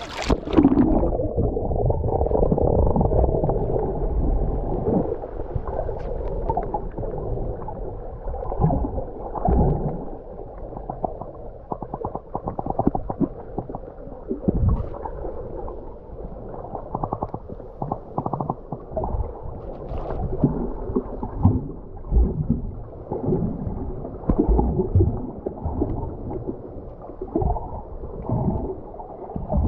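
Muffled underwater sound from a submerged camera: low gurgling and sloshing of water around it, with irregular dull thumps and no treble at all.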